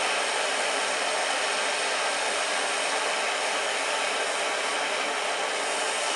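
Gas torch flame hissing steadily as it heats the small end of a Ford 300 inline-six connecting rod, expanding it for a press fit onto the piston pin.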